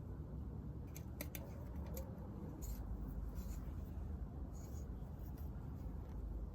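A few light, sharp clicks and small scraping sounds of hand work on bike parts, over a low steady hum.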